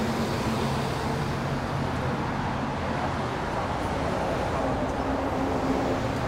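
City street traffic: vehicle engines running steadily with a low hum over the road noise.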